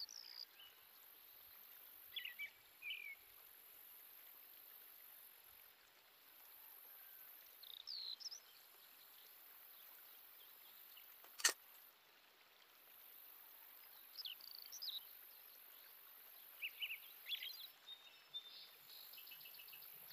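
Quiet background with a handful of faint, short bird chirps scattered through, and one sharp click about halfway through.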